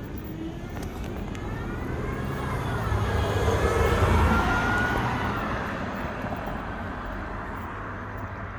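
A motor vehicle passing by: it grows louder to a peak about four seconds in, then fades away.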